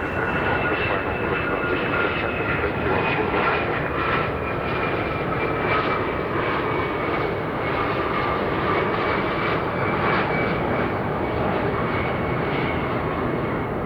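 Jet airliner's engines running loud, a dense rumble with a high whine that slowly sinks in pitch as the aircraft passes.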